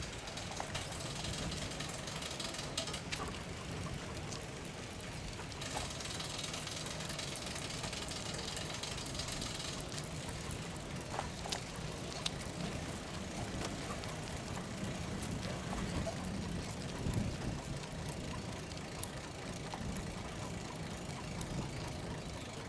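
Bicycle being ridden: steady rolling and rattling noise with a low rumble underneath and scattered light clicks.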